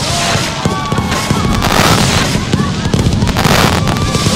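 Fireworks going off in a dense barrage, with continuous rapid pops, bangs and crackling.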